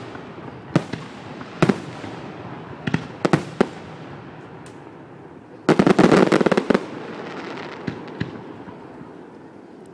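Fireworks going off: single sharp bangs every second or so, then a dense run of rapid crackling reports lasting about a second, a little past halfway, followed by a few scattered pops.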